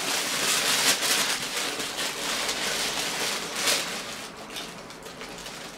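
Thin white tissue paper crinkling and rustling as it is pulled open and lifted out of a cardboard shoe box. The sound fades over the last second or two.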